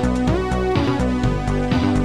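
Electronic Amiga demo music with a steady beat of about two hits a second, a bass line and lead notes that slide up in pitch.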